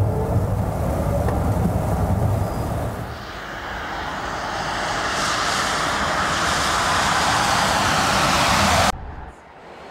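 Mercedes-Benz EQC 400 electric SUV: first a low road rumble heard inside the cabin with a faint rising electric-motor whine as it accelerates. About three seconds in this gives way to the hiss of its tyres on a wet road, growing louder as it drives past, and it cuts off suddenly near the end.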